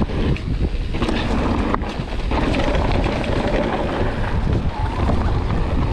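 Wind buffeting the camera microphone of a mountain bike riding a trail, over a steady low rumble of the tyres and bike on rough ground, with a few brief knocks and rattles.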